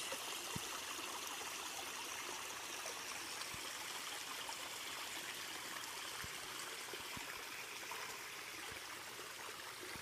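Shallow man-made garden creek trickling steadily over pebbles and rocks.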